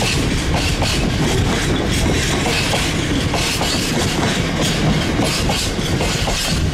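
Freight train of bogie hopper wagons passing close by, with a steady rumble and a quick, uneven run of wheel clicks as the bogies cross rail joints and pointwork.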